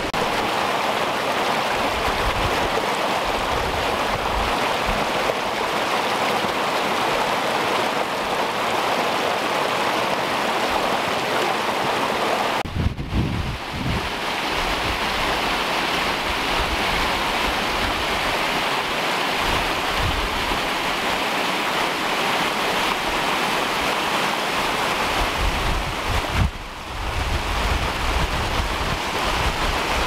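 Small hill stream rushing over rocks and little cascades, a steady rush of water, with wind buffeting the microphone now and then.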